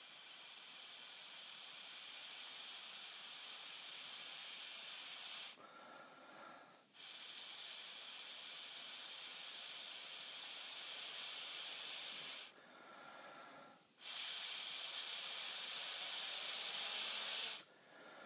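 Breath blown hard through a plastic drinking straw in three long blows of about five seconds each, with short pauses to breathe in between. The air jet is aimed at the rim of a magnetic spinning top to spin it faster.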